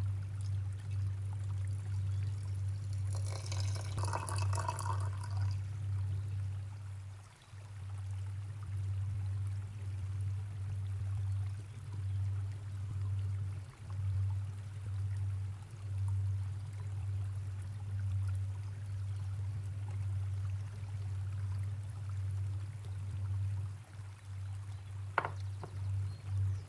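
Hot water poured from an electric kettle into a glass teapot of dried herbs, splashing for about three seconds, over a steady low hum. A single sharp clink near the end.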